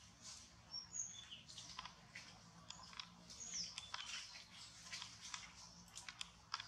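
Faint scattered clicks and ticks with a few brief high chirps, one of them falling in pitch about three and a half seconds in, over a faint low hum.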